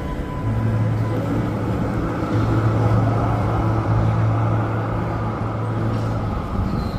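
A large road vehicle's engine running with a steady low hum over road rumble; the hum fades out about a second before the end.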